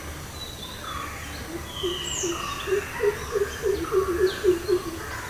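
Birdsong: several birds calling with high chirps and whistles, and from about halfway in a quick run of short, low repeated notes, about five a second.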